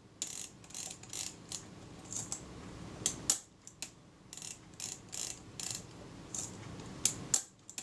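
Kodak Retina II folding camera's shutter release and mechanism worked by hand, giving an irregular series of small sharp mechanical clicks. It is the release being checked after adjustment, and it sounds right.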